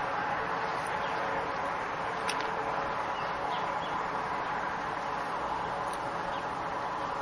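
Steady outdoor background hiss with a few faint, short bird chirps now and then, and one light tick about two seconds in.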